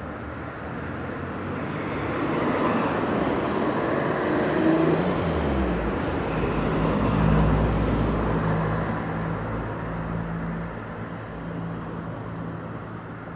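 A motor vehicle passing on the street: a rush of engine and tyre noise that swells, is loudest in the middle, then fades, with a low engine hum as it goes by.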